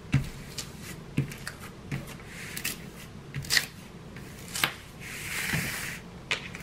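Hands rubbing, smoothing and handling a diamond painting canvas on a wooden table: scattered light taps and crinkles, with a longer rustle about five seconds in as the canvas is slid and turned on the table.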